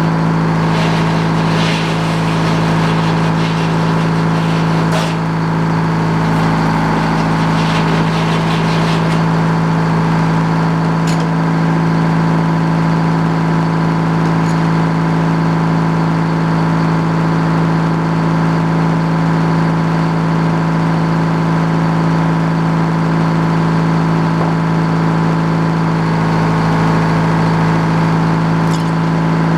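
Sawmill engine running steadily at constant speed, with a few short clicks or knocks scattered through.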